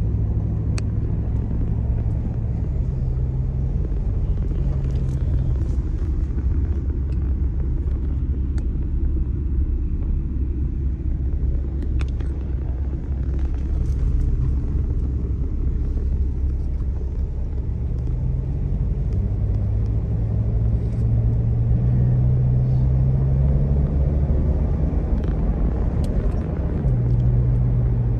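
Taxi engine and road rumble heard from inside the car's cabin, with a low engine note that rises and falls as the car moves through traffic, climbing steadily about two-thirds of the way through.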